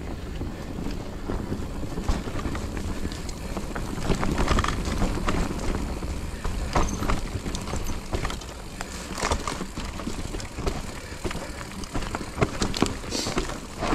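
Electric mountain bike ridden over a rough dirt singletrack: tyres rolling on dirt, with frequent knocks and rattles from the bike over bumps and wind noise on a handlebar-mounted camera.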